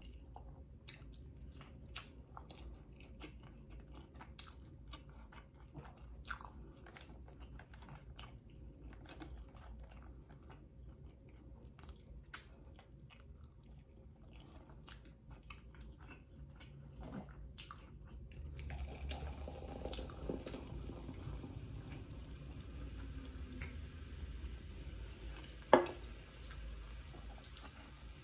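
Close-miked chewing of a sauced, somewhat soggy chicken wing, with many small wet mouth clicks and smacks. Near the end a single sharp click stands out as the loudest sound.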